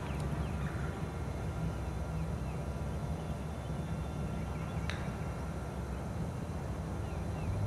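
Outdoor golf-course ambience: a steady low rumble with faint bird chirps throughout, and a single sharp click about five seconds in, a golf club striking the ball on a chip shot.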